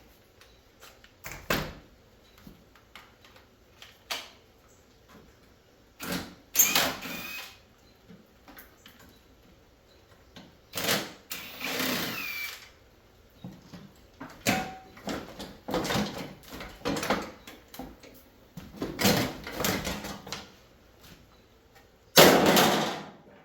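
Scrap teardown of a mini split air conditioner: scattered knocks and clatter from metal and plastic parts being handled and pulled off, with several short, louder scraping or grinding stretches and a brief high squeal about twelve seconds in.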